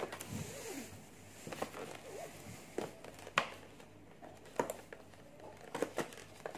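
Scissors snipping through a stiff clear plastic blister pack, with the plastic crinkling as it is cut and handled; a string of irregular sharp snips and clicks a second or so apart.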